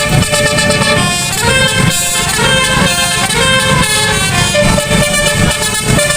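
Bus 'telolet' musical air horn playing a tune of stepped notes, over the bus engine running.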